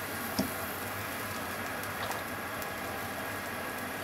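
Steady hiss of a gas hob burner under a frying pan, with a couple of faint light clicks as cooking oil is poured into the pan.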